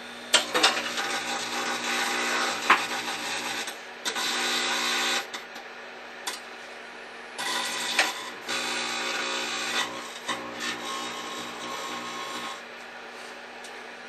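Aluminium foil inside a glass jar arcing in a running microwave oven: loud crackling with sharp snaps, coming in several bursts of a few seconds each over the oven's steady hum. The crackling stops about two seconds before the end, leaving only the hum.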